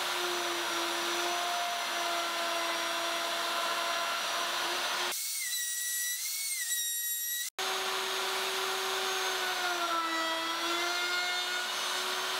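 Plunge router running and cutting into maple: a steady motor whine that dips briefly in pitch under load about ten seconds in. It cuts out for an instant about two-thirds through.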